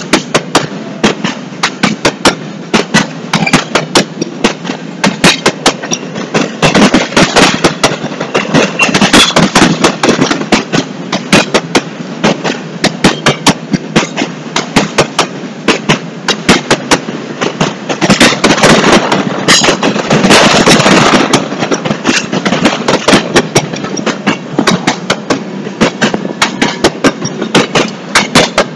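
Empty intermodal double-stack well cars of a freight train rolling past close by, the wheels clacking over the rails in a rapid, uneven run of sharp clicks over a steady rumble. The noise swells for a couple of seconds about two-thirds of the way through.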